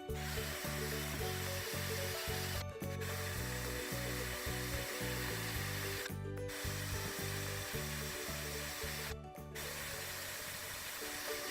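Wire brush on an electric drill scouring deep rust off a cast iron skillet: a steady scratchy whir that stops briefly three times, under background music.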